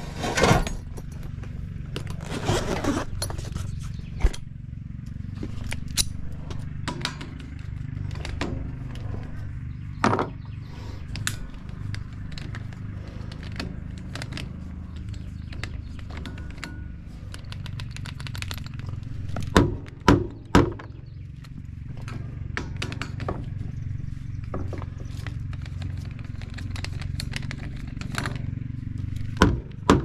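Tools and metal parts knocking, clinking and scraping in irregular bursts during hand work on an AC condenser fan motor, over a steady low hum. The loudest knocks come in a quick cluster about two thirds of the way in.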